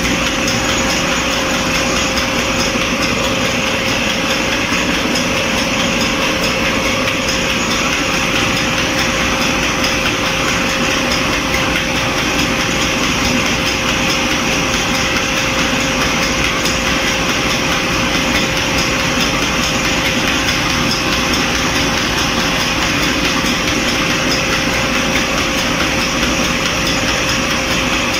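Electric flour mill (atta chakki) running steadily while grinding grain: the belt-driven electric motor and grinding stones make a loud, constant mechanical noise with one steady whining tone through it.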